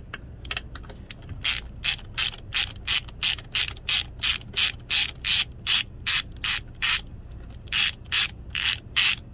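Hand ratchet wrench clicking in quick back-and-forth strokes, about three a second with a short pause near the end, as it backs out valve cover bolts on a GM 8.1-litre Vortec V8.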